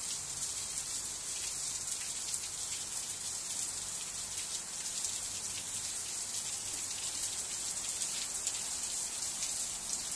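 Heavy rain falling steadily on pavement and a roof overhead, a dense, even hiss with many small drop ticks.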